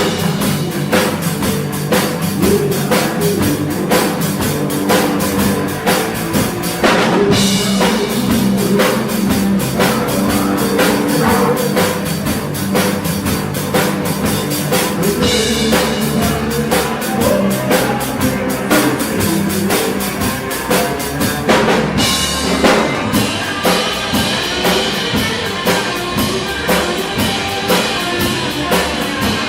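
A live rock band playing, with the drum kit loudest: bass drum, snare and cymbals keep a steady, driving beat under the rest of the band.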